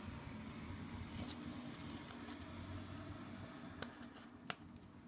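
Scissors snipping into a folded paper square, cutting small triangles from its side: a few faint, sharp snips over a low steady hum.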